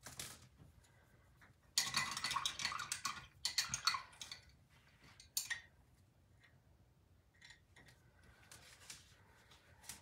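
A paintbrush clinking and rattling against a brush cup for about two and a half seconds, then a single sharp click.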